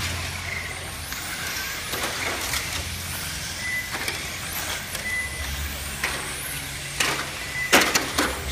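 Radio-controlled touring cars racing, their motors whining up and down in pitch as they speed up and slow down. A few sharp knocks near the end.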